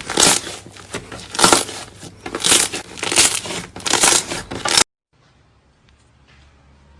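Slime being squeezed and pressed by hand: a run of repeated squishing, crackling handling noises, roughly one every half to one second. They cut off abruptly about five seconds in, leaving only faint clicks.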